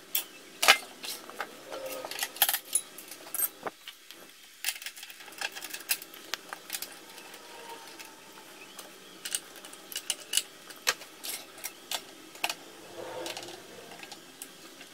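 Irregular clicks, knocks and metallic clinks of a wooden blank being handled and clamped into a lathe's metal chuck while the lathe is stopped.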